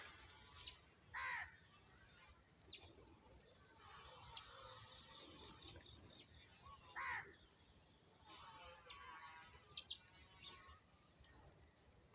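Birds calling: two short, harsh crow caws, about a second and seven seconds in, among faint chirps and twittering from smaller birds.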